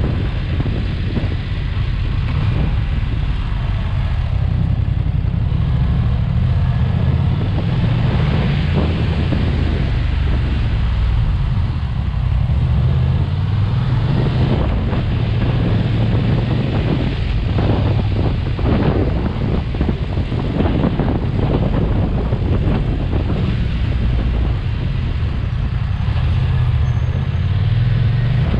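BMW F 900 XR motorcycle's parallel-twin engine running at road speed, with wind rushing over the microphone.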